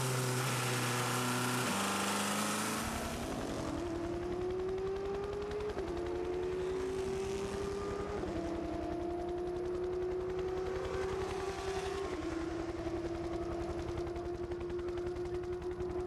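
Onboard engine sound of a Peugeot 908 turbodiesel V8 prototype at speed. After about three seconds comes a race-car engine pulling through the gears: a steady low drone with a fast pulse, its pitch climbing slowly and dropping back at each upshift, three times a few seconds apart.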